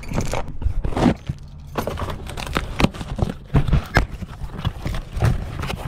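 Packing tape on a small cardboard box being slit open and the box handled and pulled open, making irregular scrapes, taps and rustles of cardboard.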